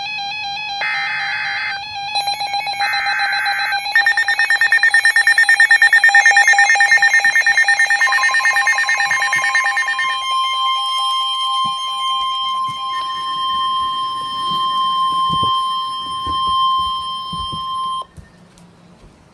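Emergency alert tones ahead of a severe thunderstorm warning: a few seconds of chopped data-burst tones, then fast electronic beeping, then one steady single-pitch warning alarm tone that lasts about ten seconds and cuts off abruptly near the end.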